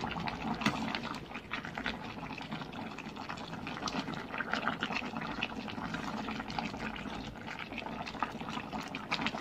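Coconut-milk chicken curry simmering in an aluminium pan, bubbling and popping steadily, with liquid sloshing as a metal ladle stirs through the thick sauce.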